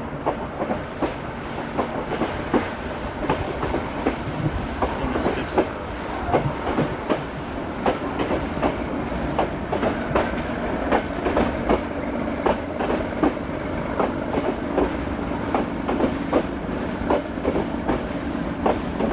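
Passenger train in motion, heard from on board: a steady rumble of wheels on rails with quick, irregular clicks as the wheels pass over rail joints.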